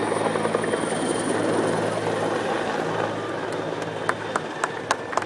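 Aircraft engine noise: a steady low hum and a high whine over a broad rushing sound, easing off after about three seconds. A few sharp handclaps come in near the end.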